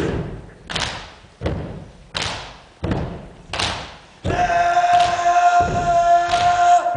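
Rugby team performing a haka: a steady run of loud thumps from stamping feet and body slaps, about one every 0.7 seconds. A little over four seconds in, the team breaks into a long held shout in unison, with the thumps going on beneath it.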